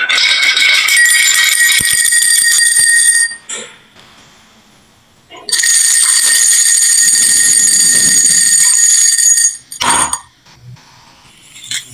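Bell-like metallic ringing from a toy marble run as marbles run through it: two spells of about three and four seconds with a quiet gap between, followed by a short clatter near the end.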